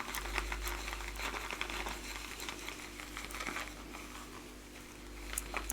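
Shaving brush whipping glycerin shaving soap into lather in a shaving mug: a dense, rapid wet crackling that keeps going without a break.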